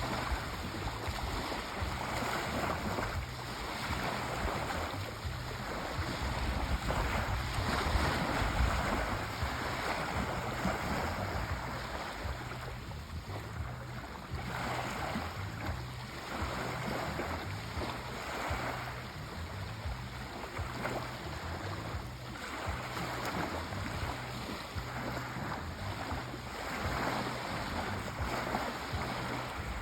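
Sea waves washing in, the surf swelling and easing every few seconds over a steady low rumble.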